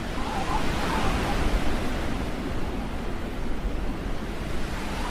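Steady rushing noise of wind in a snowstorm, with low gusty rumble from wind on the microphone.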